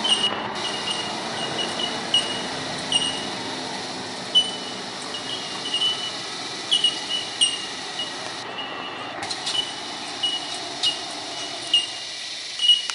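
Ford Ranger ute's engine pulling up a steep, rutted dirt climb, growing fainter as it moves away over the crest. Short high chirps sound over it again and again.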